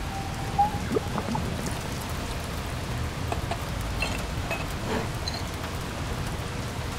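Film soundtrack ambience: a steady soft rain-like hiss with scattered faint ticks and a short rising squeak about a second in.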